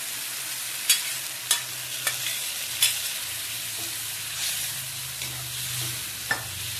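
Taro-leaf curry sizzling in a hot kadhai over fresh tempering, a steady hiss, with a spoon knocking against the pan five times while it is stirred. A faint low hum runs underneath.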